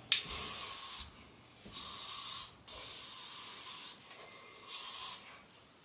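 Aerosol deodorant can spraying in four short hissing bursts of about a second each, with brief pauses between them.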